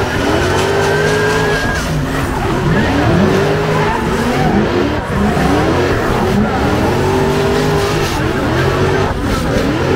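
Drift car's engine revving up and falling back again and again, about once a second, as it slides sideways, with tyres squealing.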